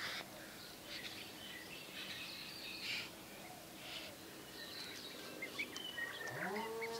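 Mallard ducklings peeping faintly: scattered short, high chirps, a few quick rising peeps near the end. Just before the end a louder, lower call with a rising then level pitch comes in.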